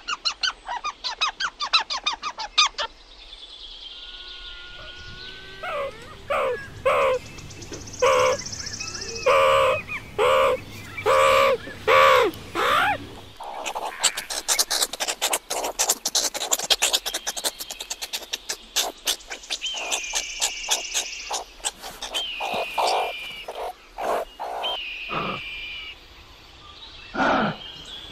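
Eastern gray squirrel giving a fast, repeated chattering call, then a long run of short high chirps, squeaks and calls from other animals. Two lower calls come near the end.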